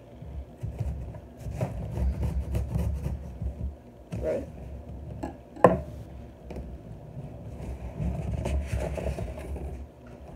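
Small knife slicing through the packing tape on a cardboard box, with cardboard scraping and low handling thumps close to the microphone; one sharp knock about five and a half seconds in, and the box flaps are pulled open near the end.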